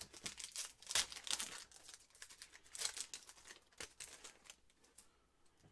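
Foil trading-card pack wrapper crinkling and tearing as a pack is opened and the cards are handled: a run of quick crackles and clicks that dies away about four and a half seconds in.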